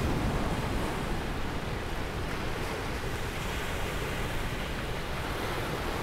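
Small ocean waves washing onto a sandy beach: a steady hiss of surf, easing over the first second as a wave draws back.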